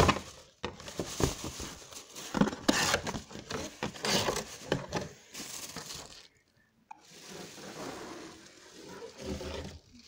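Cardboard box and plastic wrapping scraping, crinkling and knocking as a box fan is pulled out of its carton. There is a busy run of crackles and bumps for about six seconds, a brief pause, then softer rustling.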